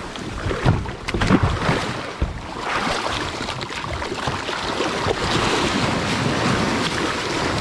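Wind buffeting the microphone over splashing sea water, with a few knocks and bumps in the first couple of seconds.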